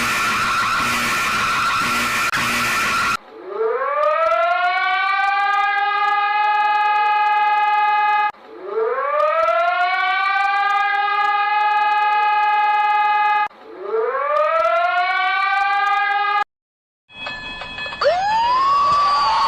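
Emergency alert sirens. A harsh steady alarm tone with a repeating pattern cuts off about three seconds in. Then a siren rises quickly in pitch and holds a steady tone, three times over, each lasting about five seconds. After a brief silence near the end, a different alert starts with a rising sweep.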